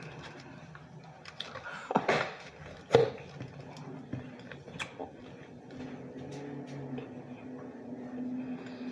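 A person eating a messy hot pastrami sandwich close to the microphone: quiet chewing with a few sharp wet mouth smacks. A faint steady hum comes in about halfway through.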